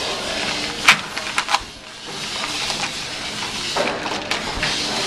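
Busy kitchen background noise, a steady hum with a few sharp clatters about a second in.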